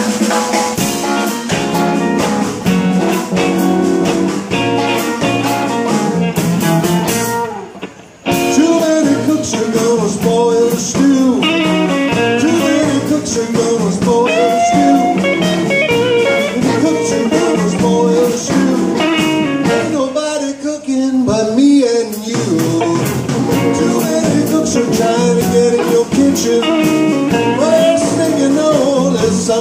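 Live blues band playing: electric guitars, upright bass and drums, with a male singer. The band stops briefly about eight seconds in, then comes back in.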